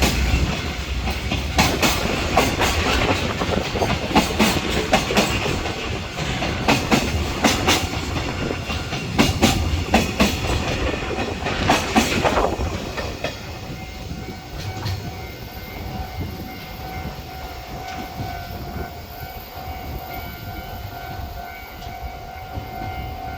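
Container freight wagons rolling past, their wheels clattering over the rail joints in a fast run of clicks that fades away about twelve seconds in. A steady tone carries on after the clatter.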